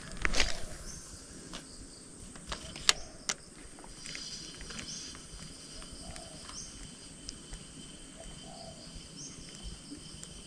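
Insects buzzing steadily, with a short high chirp repeating every second or two, broken by a few sharp clicks and knocks: the loudest about a third of a second in, two more around three seconds.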